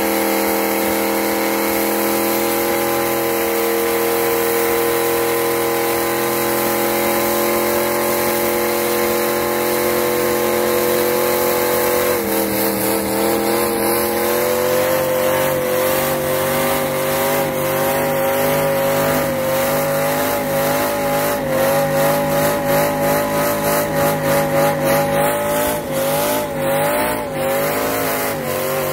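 Vintage truck's engine held at high revs, spinning its tyres in a burnout. It runs steady, drops a little in pitch about twelve seconds in, then wavers up and down, with the loudness pulsing toward the end.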